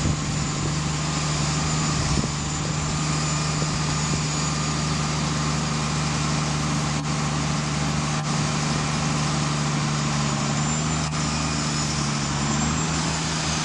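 Atlas Copco L8 drilling rig running steadily: a constant low engine hum under a dense mechanical noise, with a few faint clicks.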